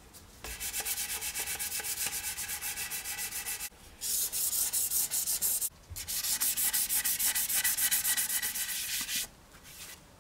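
Hand-sanding a wooden box's edge with a small piece of fine-grit sandpaper: quick back-and-forth scratchy strokes in three runs, with brief pauses between them.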